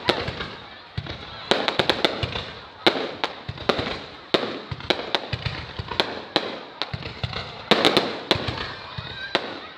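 Fireworks going off: a dense, irregular series of sharp bangs and cracks in rapid clusters, with the loudest volleys about two seconds in and about eight seconds in.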